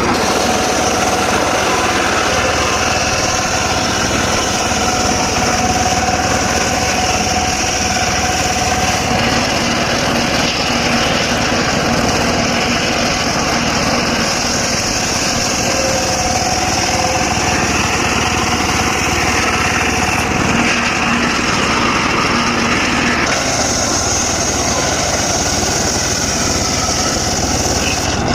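Engine-driven circular saw running steadily while it cuts dry teak wood, its tone changing a few times along the way.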